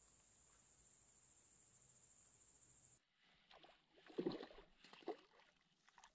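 Insects chirping, a steady high pulsing buzz that cuts off abruptly about three seconds in. It gives way to a few rustles and short knocks, the loudest a little past the middle.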